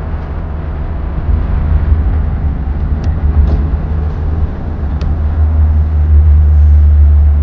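A car cruising at highway speed, heard from inside the cabin: a loud, steady low rumble of road and wind noise that grows stronger near the end, with a few light clicks between about three and five seconds in.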